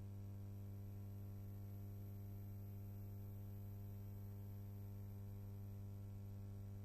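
Steady low electrical mains hum with a faint hiss: the background noise of a silent film transfer. No other sound.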